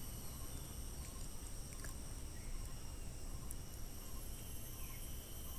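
Quiet background: a faint steady hiss with several thin, unbroken high-pitched tones and a low rumble, broken by a couple of faint ticks.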